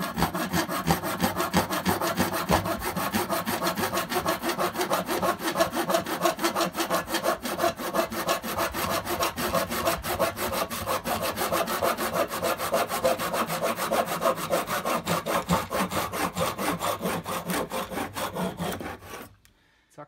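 Japanese pull saw cutting through an oak chair leg with rapid, even strokes. The cut goes through and the sawing stops suddenly about a second before the end.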